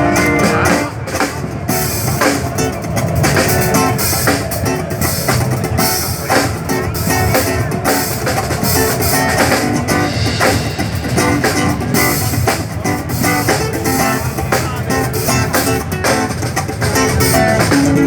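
Instrumental band music with guitar and drum kit playing a steady beat, no singing.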